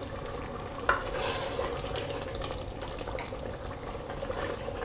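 Wooden spoon stirring thick mutton gravy in an open pressure cooker pot, with a steady sizzle as the gravy cooks down and dries. There is a light knock of the spoon about a second in.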